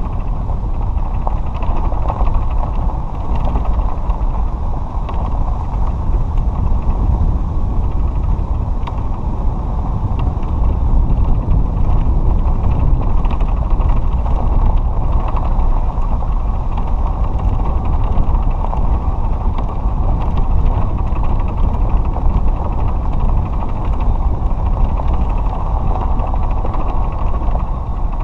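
A cart rolling along a gravel and dirt lane: a steady low rumble from the wheels on the rough surface, with scattered knocks and rattles from the cart.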